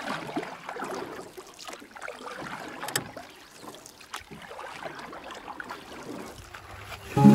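Small waves lapping and splashing against the stones at the water's edge, an uneven wash of water sound with little splashes.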